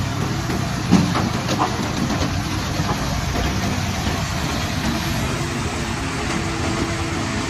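Heavy construction machine's diesel engine running steadily, with a sharp clank about a second in and a lighter one just after.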